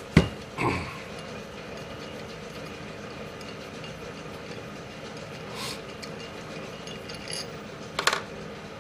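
A few sharp knocks and clicks as a homemade aluminium disc tool is handled and its screws turned on a workbench: two knocks near the start, faint clicks in the middle and a pair of clicks near the end, over a steady low hum.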